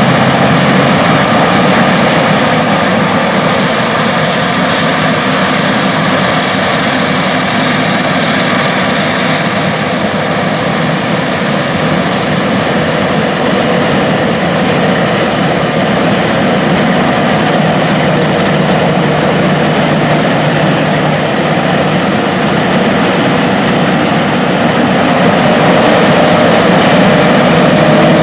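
John Deere S780 combines, 473 horsepower, running while harvesting wheat: a steady, loud engine drone mixed with the rush of the header and threshing machinery, growing louder near the end.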